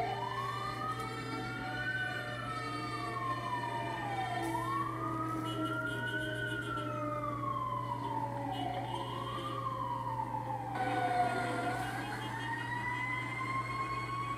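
Fire engine's Federal Q mechanical siren winding up and coasting back down in slow cycles of about four seconds, each quick rise followed by a longer fall. A second siren glides slowly downward beneath it.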